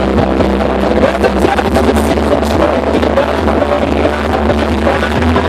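Live indie folk-rock band playing a song loudly, full band with steady bass notes.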